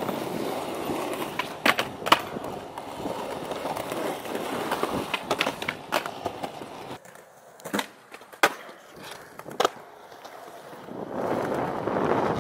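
Skateboard wheels rolling over rough asphalt, broken by sharp clacks of the board striking the ground. Midway the rolling drops away and three separate clacks ring out, then rolling picks up again near the end.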